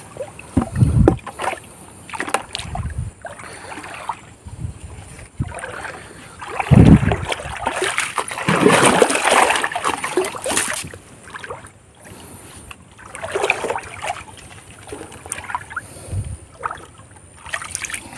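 Water splashing and sloshing in irregular bursts as a person wades through a shallow river and sweeps a hand net through it, with a few dull low thuds; the longest stretch of splashing comes about halfway through.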